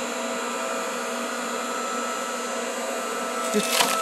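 Hydraulic log splitter running steadily with a fixed-pitch hum. Near the end come a few sharp cracks as a light metasequoia log starts to split.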